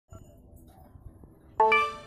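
A single bell-like chime, typical of a subscribe-button notification sound effect. It rings out suddenly about one and a half seconds in with a full set of overtones and fades away over faint background sounds.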